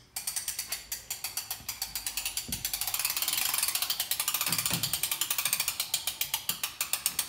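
Ratchet crank of a bench draw board clicking rapidly and evenly as it winches a compound bow's string back against a hanging scale to measure draw weight. The clicking starts suddenly, with a couple of low thuds partway through.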